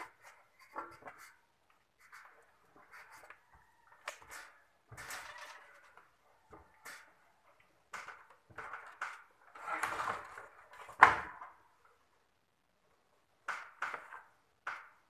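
Irregular clatter of objects being handled and set down: scattered clicks, knocks and short scrapes, busiest a little past the middle, with one sharp loud knock about eleven seconds in.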